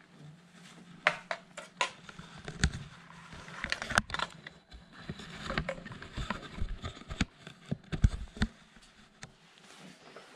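Handling noise of a handheld camera being carried and set back in place: scattered knocks, clicks and rubbing, the loudest knock about eight seconds in. A low hum runs through the first few seconds.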